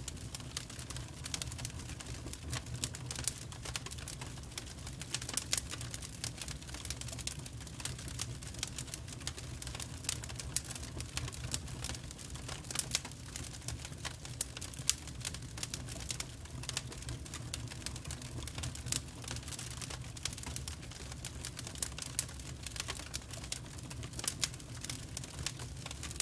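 Wood fire burning, the firewood crackling and popping irregularly over a steady low rumble.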